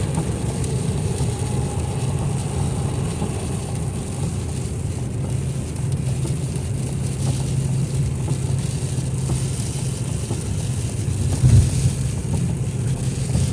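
Steady low drone of a car's engine and tyres at highway speed, heard from inside the cabin. A single short thump comes about eleven and a half seconds in.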